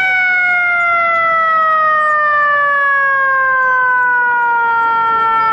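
FDNY fire apparatus's e-Q2B siren winding down: one long, loud wail whose pitch falls slowly and evenly.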